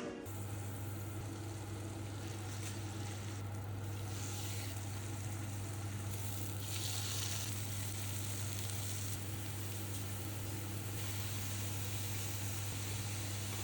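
Food frying in a hot pan, a steady sizzle that swells louder a few times, over a constant low hum.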